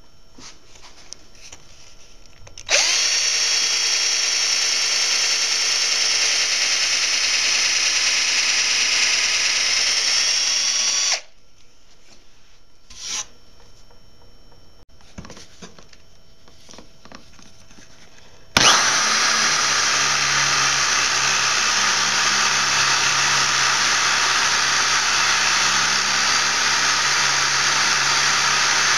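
Power drill boring into wood twice. First a brad-point bit runs steadily for about eight seconds and stops. After a pause with a few small knocks, a Forstner bit starts up about two-thirds of the way in and cuts with a louder, rougher sound.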